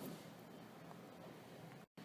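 Near silence: faint steady hiss from the TV broadcast, with a very brief total dropout near the end.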